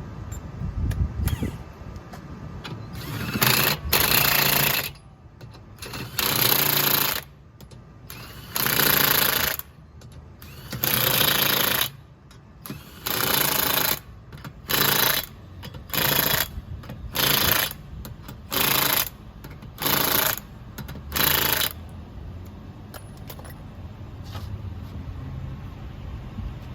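Impact wrench fitted with a 100 ft-lb torque stick hammering the lug nuts tight on a spare wheel: about a dozen bursts of rapid rattling hammering, each a second or less, the later ones shorter.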